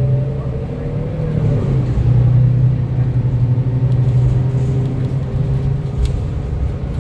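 Interior sound of a 2025 Gillig BRT+CNG 40-foot bus under way: its Cummins natural-gas engine and drivetrain running with a steady low hum and a fainter whine that dips in pitch about two seconds in.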